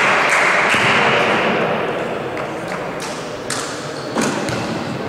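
Echoing volleyball-hall hubbub with play stopped: a dense wash of voices and shouts that slowly dies down, with a few sharp knocks and claps in the second half.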